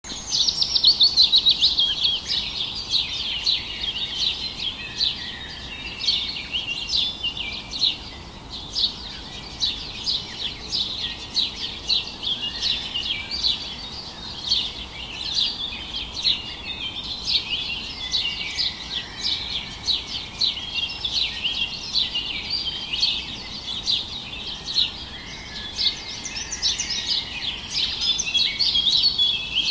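A dense chorus of small birds chirping and twittering without pause.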